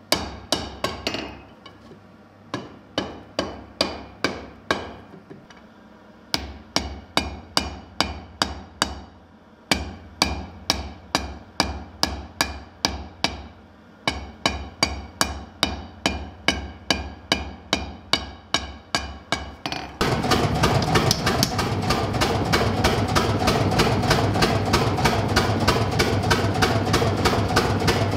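Hand hammer striking hot steel on an anvil, about two ringing blows a second in runs broken by short pauses. About two-thirds of the way through, a power hammer takes over with rapid, continuous pounding.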